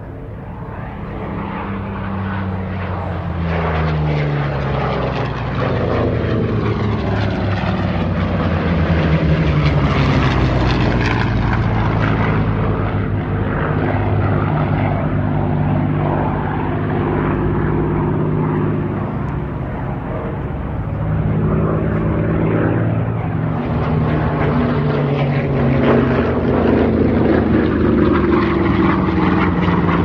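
Piston-engined WWII warbird propeller aircraft flying by, a continuous engine drone that swells over the first few seconds, with its pitch sliding down as aircraft pass. The sound eases off near twenty seconds in, then builds again for another pass.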